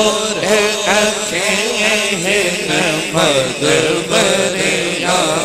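A man singing a devotional Punjabi naat into a microphone, in long wavering, ornamented lines.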